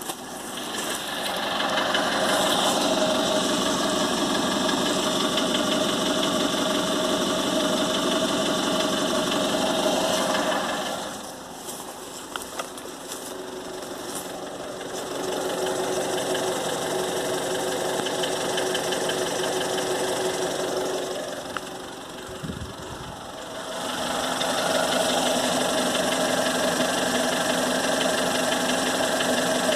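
Volkswagen CWVA 1.6-litre four-cylinder petrol engine running warm, with a knock from inside the engine that the owner presents as the fault. The sound dips quieter twice, about 11 and 22 seconds in, and comes back up.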